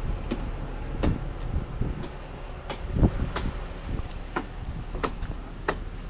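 A run of irregular sharp knocks and clanks, about a dozen, the loudest about three seconds in, over a faint low rumble.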